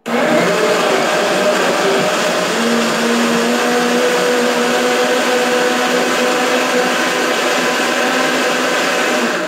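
Moulinex countertop blender switched on and running steadily, its blade chopping apple and pear pieces in water into juice.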